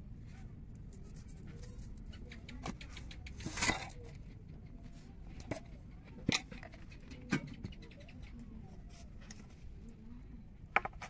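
Scattered small clicks and taps of a meal being eaten by hand from a steel plate and bowl, with a brief rustle a few seconds in, over a low steady background hum.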